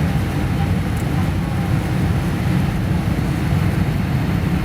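Steady low rumble of a Boeing 787-8 heard from inside the cabin, engines and aircraft running at an even level with no rise in power.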